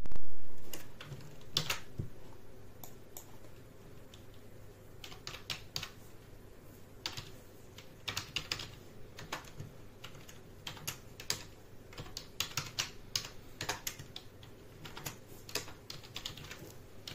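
Typing on a computer keyboard: irregular key clicks, singly and in quick runs with short pauses between, as a command is typed into a terminal. A louder low thump comes right at the start.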